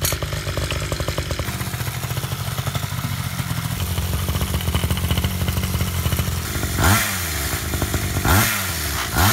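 Small two-stroke pocket-bike engine running on its first start, a rapid, rattly firing note. Near the end it is revved briefly a few times, the pitch rising and falling with each blip.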